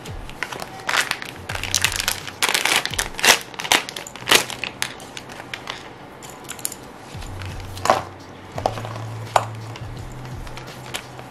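Handling noise from a clear plastic accessory bag and a tablet case's straps: a dense burst of crinkling and crackling in the first few seconds, then a few scattered clicks, over a faint low hum.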